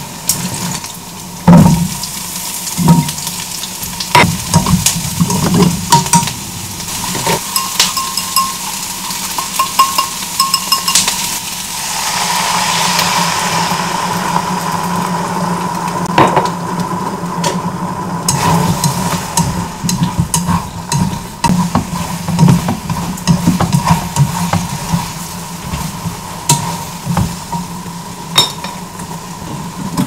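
Chicken nuggets and vegetables sizzling in a nonstick frying pan as they are stirred, first in oil and then in sweet-and-sour sauce. Repeated sharp clicks and knocks of utensils on the pan, the loudest near the start, and a steady sizzle that swells about twelve seconds in.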